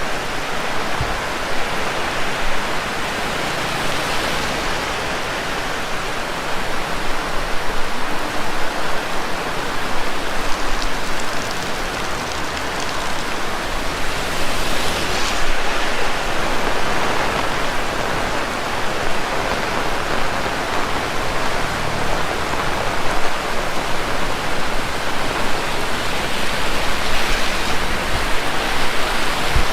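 Heavy rain pouring down steadily in a dense, even hiss, swelling slightly now and then, with scattered drops pattering on nearby surfaces.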